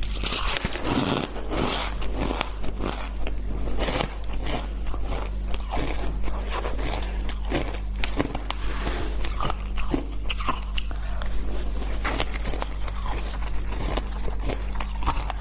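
Close-up crunching and chewing of packed shaved ice, with many quick, irregular crackles as the ice is bitten and broken in the mouth, over a steady low hum.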